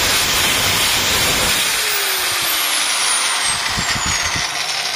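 AG 1180 9-inch (230 mm) angle grinder with no disc fitted, running loud at no load. From about two seconds in its high whine falls steadily in pitch as the motor slows, with a few soft knocks near the end.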